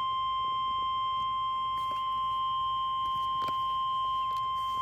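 NOAA Weather Radio warning alarm tone: one steady, unbroken high beep near 1 kHz, heard through a weather radio receiver with a little static beneath it. The tone is the alert that a warning broadcast, here a tornado warning, is about to follow.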